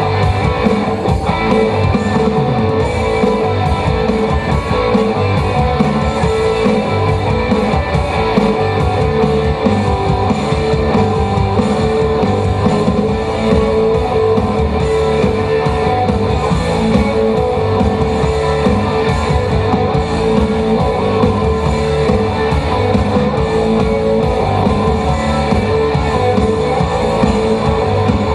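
Guitar-led background music with a steady beat, one note held throughout.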